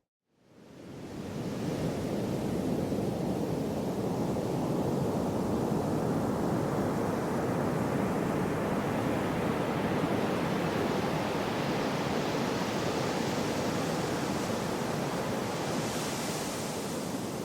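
Gentle sea waves washing ashore, a steady rushing with a brighter surge near the end. The sound drops out to silence at the very start and fades back in over a second or two.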